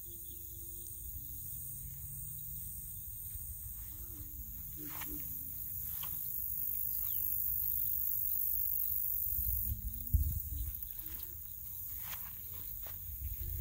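Marsh ambience: insects shrill steadily and high, over a low rumble of wind on the microphone. A few faint, wavering low-pitched calls and short chirps come through, and there is a thump about ten seconds in.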